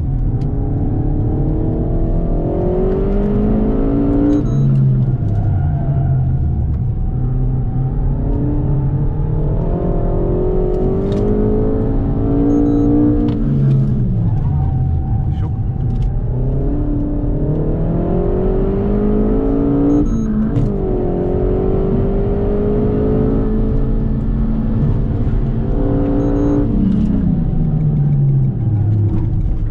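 Renault Mégane 4 RS Trophy's 1.8-litre turbocharged four-cylinder, heard from inside the cabin, driven hard on track. The engine note climbs through the revs and drops away at each gear change or lift for a corner, about four times, over a steady rumble of tyres and road.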